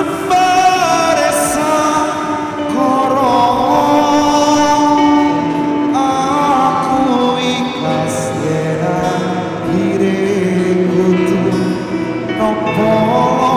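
A song sung with a band playing behind the singer.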